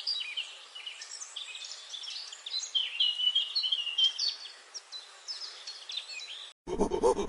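Many small birds chirping and twittering in quick, overlapping high calls over a faint background hiss. Near the end it cuts off abruptly into a louder, repeated pitched animal call pulsing several times a second.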